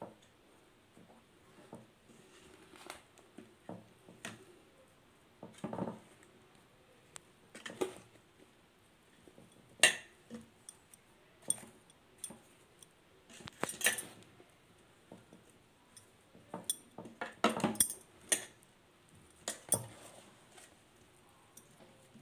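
Steel spoon stirring chopped raw mango and spice powder in a stainless steel bowl: irregular scrapes and clinks of metal against the bowl's side, a few sharper strikes standing out.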